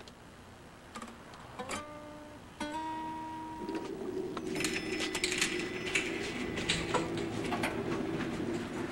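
Acoustic guitar plucked twice, each note ringing out, then a steady low hum with scattered light clicks and clatter.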